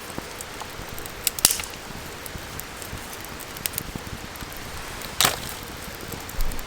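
Wood campfire crackling, a steady hiss broken by scattered sharp pops, the loudest about a second and a half in and another about five seconds in.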